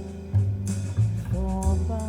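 Instrumental passage of a jazz recording, with a drum kit, bass notes and sustained pitched instrument lines and no singing, played back through JBL 4307 studio monitors.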